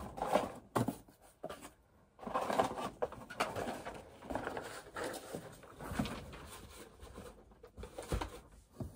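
Items and packaging being handled and lifted out of a box: irregular rustling with scattered light knocks.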